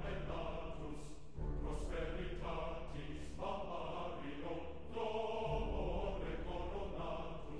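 Background music: choir-like voices singing held chords that change every second or so, over a deep sustained bass note.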